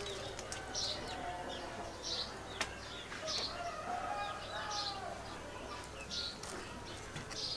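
Birds calling: a short, high call repeated about once a second, over lower wavering calls.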